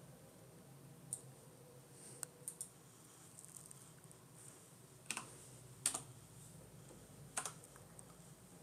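A handful of faint computer keyboard keystrokes, about seven separate clicks spaced unevenly, the loudest about six seconds in, over a faint low hum.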